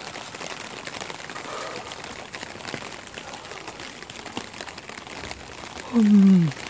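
Rain pattering steadily on a clear plastic umbrella, many small irregular drop ticks, with footsteps on wet pavement. Near the end a short, loud tone falls in pitch over about half a second.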